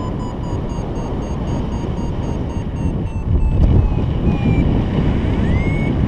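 Wind rushing over the camera microphone in flight, with a paragliding variometer beeping quickly, about four short beeps a second near 1 kHz, sliding slightly lower in pitch. Past the middle the beeps jump higher and turn into rising chirps. This is the vario's climb tone, which sounds while the glider is going up in lift.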